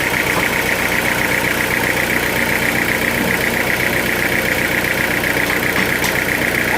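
Sawmill machinery running steadily: an engine-driven drone with a high, rapidly pulsing whine that holds without a break.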